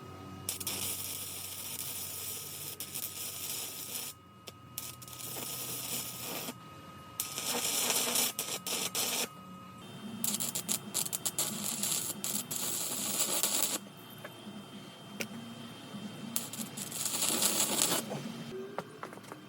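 Welding arc from a small IGBT inverter stick welder crackling and sizzling in four runs of a few seconds each, with short pauses between them.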